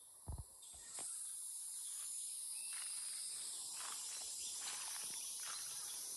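A couple of soft thuds at the start, then from about a second in a steady, high-pitched chorus of insects in the forest, with faint scattered rustles over it.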